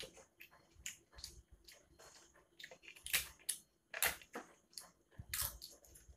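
Close-up eating sounds: a crisp papad crackling as it is broken by hand and chewed, a run of sharp crunches, the loudest about three to five and a half seconds in.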